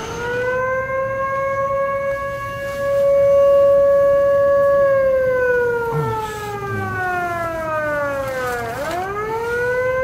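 Outdoor warning siren wailing. It winds up to a steady pitch, holds for about five seconds, slides down over about four seconds, then winds up again near the end. It is an emergency alarm sounded after a heavy downpour, a flood warning.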